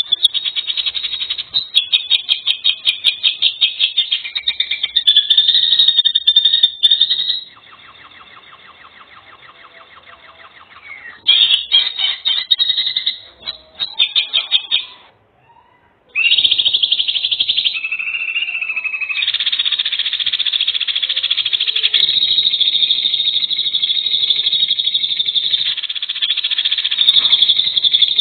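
High, rapid bird trills and chirps in several spliced stretches that change abruptly from one call type to another, with a brief break about halfway through.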